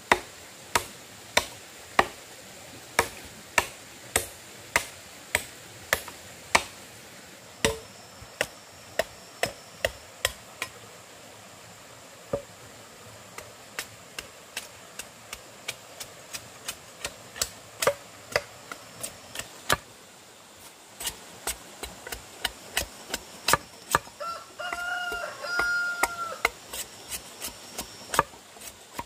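Repeated sharp hand-tool strikes, about two a second, with a short pause about a third of the way through. Near the end come two short pitched animal calls.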